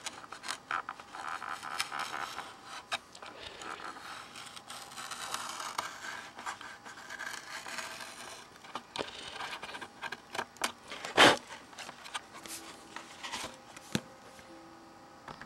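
Hobby knife scraping and cutting along the edge of the plastic heat-shrink covering film on a balsa model-plane fuselage, with the film tearing as strips peel away from the wood; irregular scratches and small clicks, and one sharp click about eleven seconds in.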